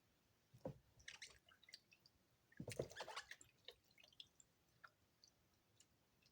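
Wet bar of EXXE soap being handled and lathered in wet hands: a short squish about half a second in, a longer, louder wet squelching with fine crackles a couple of seconds later, then scattered small drips and pops.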